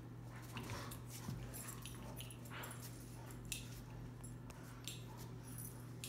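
Rottweilers play-fighting over a tug toy: faint dog vocal noises with short clicks and scuffles, the sharpest click about three and a half seconds in, over a steady low hum.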